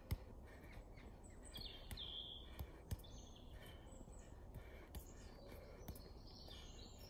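Soft, irregular taps of a football being rolled and touched with the left foot, the sole and the outside of the boot, in a quick ball-mastery drill. A few bird chirps sound in the background, about a second and a half in and again near the end.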